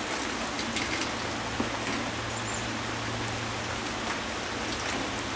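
Steady hiss of rain falling together with a rain-swollen creek rushing, with a few sharper drips.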